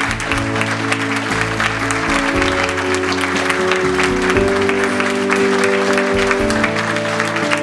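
Background music of slow held chords with an audience applauding over it.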